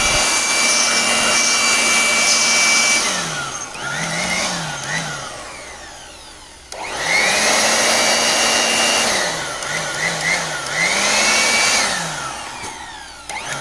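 Small handheld electric blower running at full speed, then switched off and on so its motor and fan dip and surge twice before spinning down. About seven seconds in it starts again with a rising whine, runs steadily, dips and surges again, and winds down near the end.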